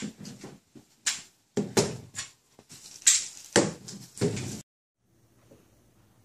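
A long bone held in a dog's mouth bumping and scraping against the frame of a sliding glass door as the dog tries to push through: five loud knocks roughly a second apart. After about four and a half seconds the sound cuts off to a faint room hum.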